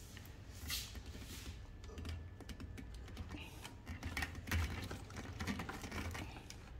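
Faint, irregular small clicks and taps with plastic rustling: hands working a clear plastic hose onto the brass inlet fitting of a vacuum pump still wrapped in its plastic bag.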